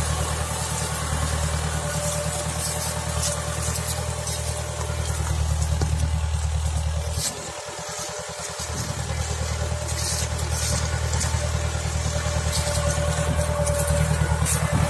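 Deutz 6206 tractor's air-cooled six-cylinder diesel engine running steadily while pulling a reversible plough through the soil. The low engine drone drops out for about a second and a half just past the middle, then returns.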